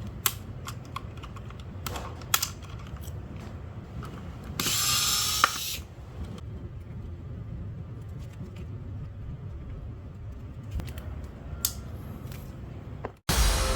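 Scattered sharp clicks and light mechanical clatter of small hard parts being handled, with a short hissing rustle about five seconds in. Music starts just before the end.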